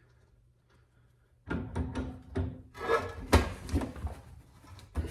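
Hand work on an old drill press's quill mechanism: after a near-quiet start, a quick run of clunks, knocks and rubbing begins about a second and a half in.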